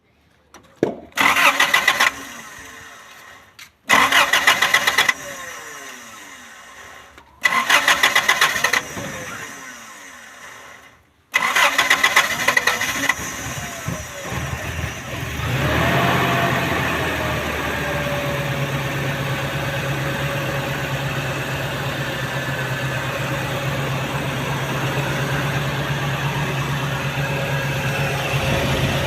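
Toyota 3RZ 2.7-litre four-cylinder engine hard-starting: the starter cranks in four short bursts before the engine catches about halfway through, revs up and settles into a steady idle. The hard start and rough idle are put down to a faulty engine temperature sensor.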